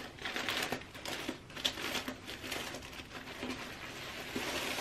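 Plastic packaging crinkling and rustling in irregular bursts as it is pulled open by hand and a folded fleece hoodie is drawn out of it.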